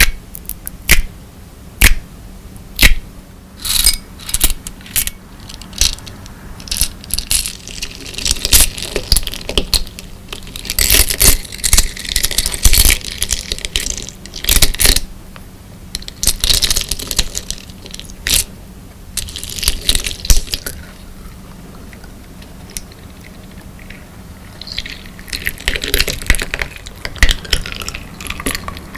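Slime packed with crystal glass decorative stones being squeezed and pressed, the glass pieces clicking and grinding against each other. It starts with single sharp clicks, then turns into longer crunchy, crackling stretches in bursts with short pauses.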